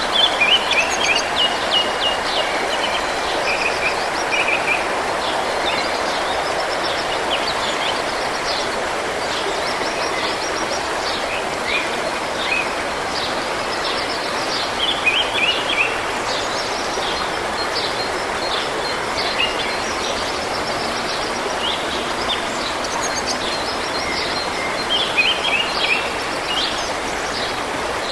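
Running stream of water, a steady rush, with small birds singing over it in short repeated chirps and trills, in clusters every several seconds.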